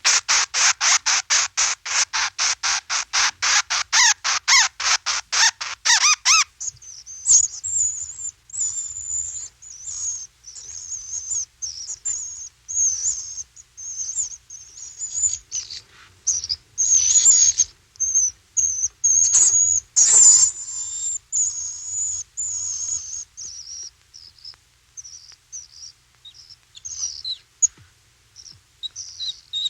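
Bats calling. It opens with a fast, even train of clicking pulses, about four a second, that stops after about six seconds. Irregular high-pitched chirps and squeaks follow.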